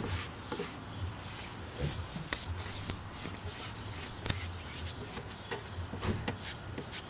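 Light rubbing and handling noises with scattered small clicks and taps.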